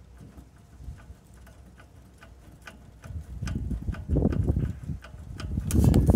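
Light metallic clicks from a Solex 30 PICT-1 carburettor's throttle shaft and linkage as it is worked by hand, the sign of play in the worn throttle shaft. Low rumbling bursts grow louder from about halfway through.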